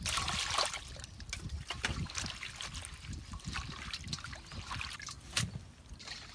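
Water pouring into a stainless steel bowl of holy basil leaves, then hands swishing the wet leaves around in the water with repeated small splashes.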